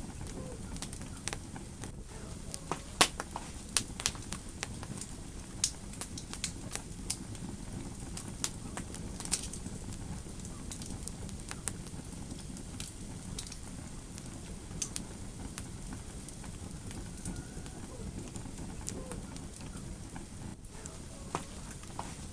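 Fire crackling in a fireplace: irregular sharp pops and snaps over a steady low rumble of the flames, the pops coming thicker in the first half.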